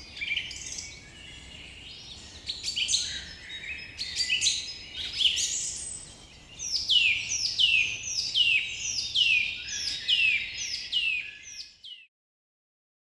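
Songbirds chirping in a busy mix of short high calls. About halfway through, one bird repeats a falling chirp about twice a second. The sound cuts off suddenly about a second before the end.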